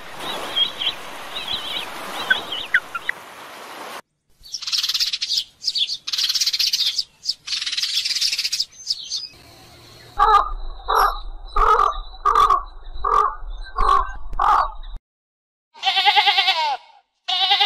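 A string of animal sounds cut together: running water with faint chirps, then bird song, then seven harsh caw-like calls evenly spaced. Near the end a sheep bleats twice.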